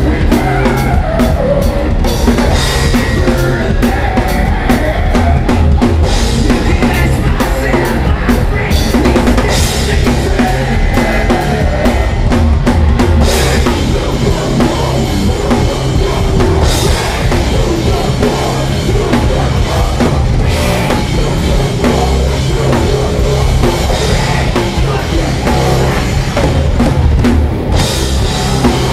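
Live rock band playing loudly: electric guitars over a driving drum kit, with a heavy bass drum and dense cymbal and drum strikes.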